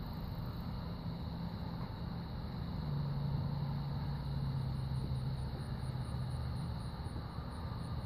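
Low steady motor hum whose pitch steps down and gets a little louder about three seconds in, with a faint high rhythmic pulsing through the middle of it.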